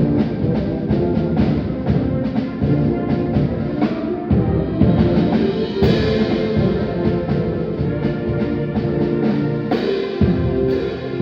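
School concert band playing a holiday medley, with drums and timpani keeping a steady beat under the brass.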